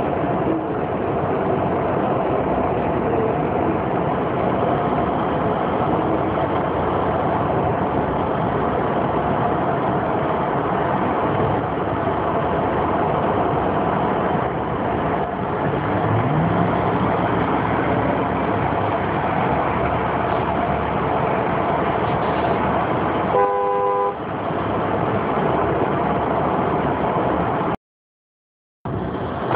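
Steady traffic and road noise of cars in a city street, with one short car horn honk about three-quarters of the way through. The sound drops out completely for about a second near the end.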